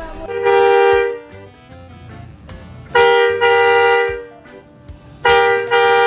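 Replica Hino RK-8 truck horn sounded three times: one blast of about a second, then two longer blasts a couple of seconds apart, each broken by a short gap. Each blast is a steady chord of two notes.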